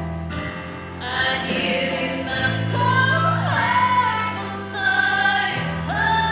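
A slow song: a singer's voice over sustained low instrumental notes, the voice coming in about a second in.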